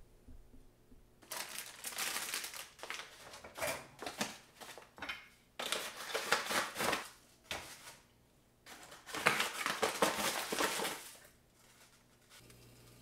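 Foil coffee bag crinkling as it is handled and opened over a pour-over filter, in three bouts of crackling with short pauses between.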